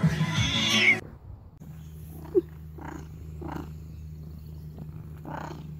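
Music cuts off about a second in. Then an orange tabby cat purrs close to the microphone, a steady low rumble, with one brief sharp noise a little after two seconds in.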